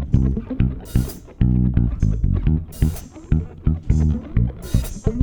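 Live band playing an instrumental passage: bass guitar and guitar over a drum kit, with cymbal hits about every second or two.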